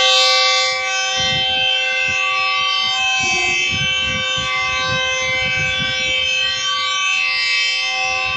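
Diesel locomotive's multi-note air horn sounding one long, unbroken blast, a steady chord of several notes, as the train pulls out of the station.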